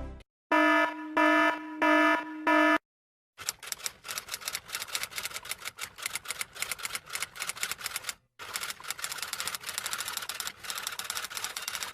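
Four short electronic beeps in quick succession, then a pause, then fast continuous typing clicks like a typewriter or keyboard, broken by a brief stop about eight seconds in.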